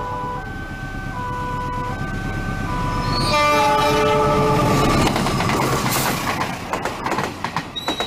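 CC 206 diesel-electric locomotive's horn sounding in alternating short two-note toots as it approaches, then a louder sustained chord about three seconds in as it comes close. The horn gives way to the rumble and clatter of wheels over rail joints as the locomotive and its cars pass.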